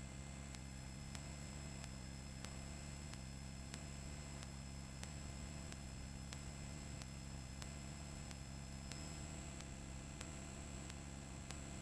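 Steady helicopter noise heard from a camera mounted at the open cabin door during a hoist: a constant low hum with a thin high whine above it, and faint regular ticks about every 0.6 seconds.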